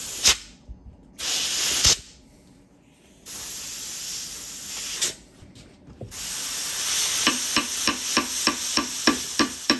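Compressed air blown in hissing bursts into the port of a seized, rusted hydraulic cylinder from a 1970 Triumph TR6; the piston does not budge. From about seven seconds in, light hammer taps on the cylinder, about three a second, over the continuing hiss.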